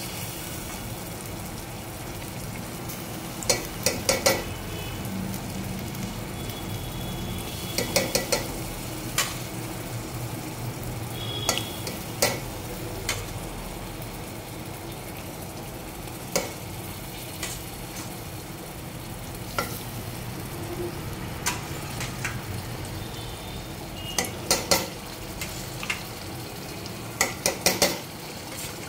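A metal ladle stirring and scraping in a metal pot, with clusters of sharp clinks every few seconds. Under it runs a steady sizzle of cooked dal being mixed into fried onion and spice masala.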